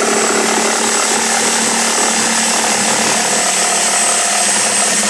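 Power saw running steadily and cutting through the pool table's structure to shorten it.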